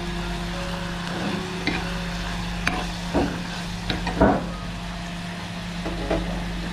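Spoon scraping and knocking in a pan of thick curd chilli fry, its liquid cooked down almost dry, with several scrapes over a soft sizzle. A steady low hum runs underneath.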